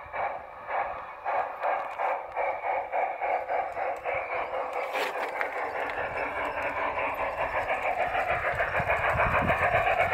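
LGB Mogul battery-powered G-scale model steam locomotive running along garden track toward the listener, with a rhythmic chuff about three times a second that blurs into a denser, louder running sound as it nears. A low rumble of the wheels builds toward the end, and there is a single sharp click about halfway through.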